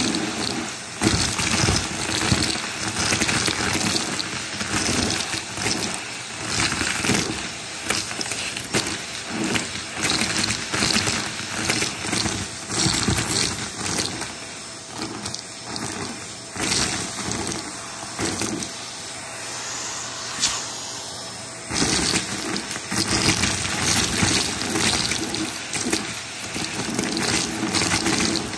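Vacuum cleaner running with its bare wand sucking up confetti and sequins from a shag rug: a steady rush of air with constant rattling and clicking as the pieces are pulled up the wand. It eases for a couple of seconds about two-thirds of the way through.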